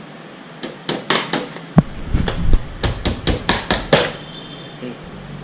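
Metal tool knocking and clicking against a Ford EcoSport radiator, about a dozen sharp strikes in quick succession over three seconds or so, as the radiator is worked open.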